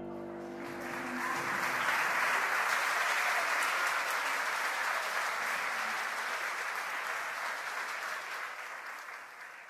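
Applause from a group, swelling over the first two seconds, holding steady, then slowly fading out near the end. The last notes of soft background music die away at the start.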